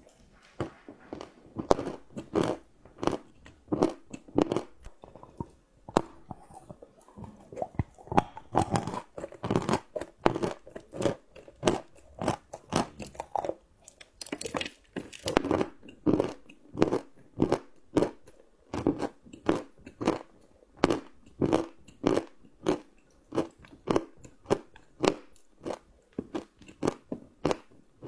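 Close-miked chewing of crunchy chocolate: a steady run of crisp crunches, about two a second, with a brief let-up around six seconds in.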